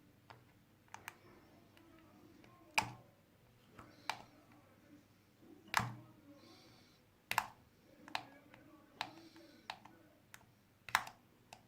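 Irregular sharp clicks and taps, about eight of them, with a couple of faint brief scrapes: a plastic card being worked along the glued edges of a heated Samsung Galaxy S7 Edge to pry its glass panel loose.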